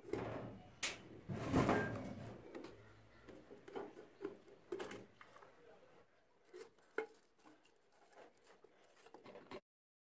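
Metal knocks, clicks and scraping as an old rusty fan motor's housing and steel end cap are handled and worked loose, loudest about a second and a half in. The sound cuts off abruptly near the end.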